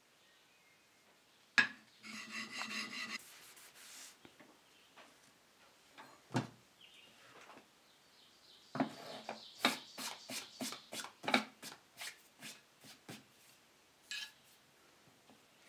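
An old two-inch framing chisel handled and honed on a sharpening stone. There is a sharp knock about a second and a half in, then a short scrape and a second knock, then a run of quick, even rubbing strokes of steel on stone, about three a second.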